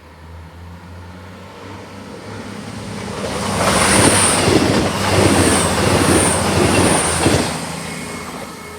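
A train passing close by: it grows louder over about three seconds, runs loud for about four seconds with a high wheel squeal coming and going four times, then fades.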